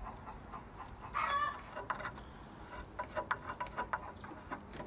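Chickens clucking: a short pitched call about a second in, then a run of short clucks around three seconds in.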